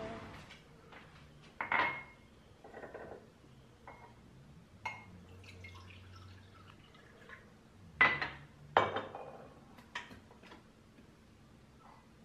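Glass and ceramic kitchenware clinking and knocking on a countertop as it is handled: a handful of separate clinks with short ringing, the two loudest close together about eight seconds in.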